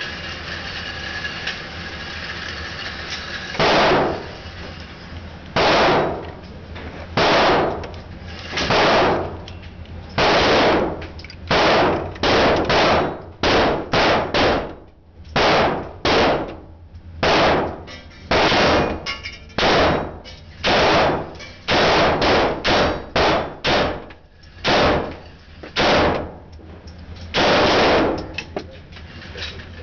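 Gunshots echoing in an indoor shooting range: an uneven run of about two dozen shots, some spaced a second or two apart and some in quick strings, starting a few seconds in and ending near the end. A steady hiss fills the first few seconds before the first shot.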